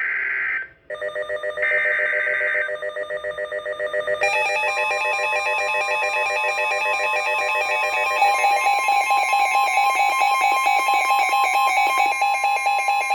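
A short burst of SAME data screech ends, then a weather radio's warning alarm: several steady tones pulsing rapidly, with more tones joining about four seconds in and again about eight seconds in. It signals an incoming severe thunderstorm warning.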